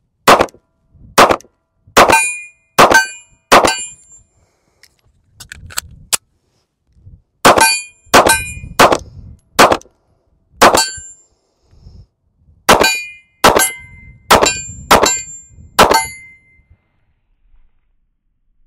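Smith & Wesson Bodyguard 2.0 .380 ACP pocket pistol being fired: more than a dozen sharp shots, one at a time, in groups with pauses of a few seconds between them. Many of the shots carry a short metallic ring.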